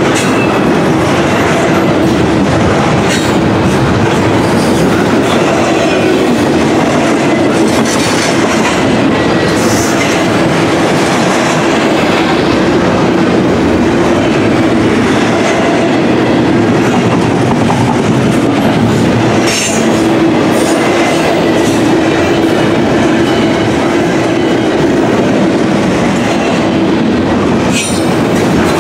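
Double-stack intermodal well cars rolling past: a loud, steady rumble of steel wheels on rail with a constant hum, broken now and then by a sharp clank.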